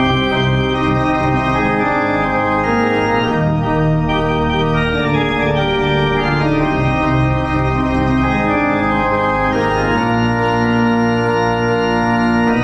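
Church pipe organ playing full, sustained chords, the notes changing every second or so.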